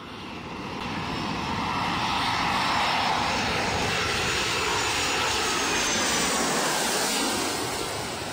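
Jet airliner flying past overhead: the engine noise builds over the first couple of seconds, holds steady, and eases off a little near the end as it passes.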